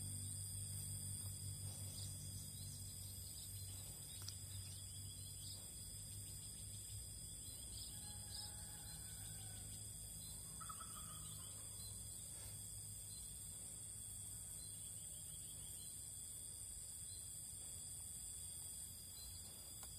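Steady high-pitched drone of insects, with a few short bird calls about halfway through. A low hum fades away over the first few seconds.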